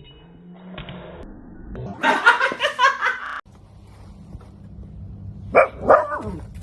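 A person laughing hard in quick pulses for about a second and a half, cut off abruptly. Then a dog barks a couple of times near the end.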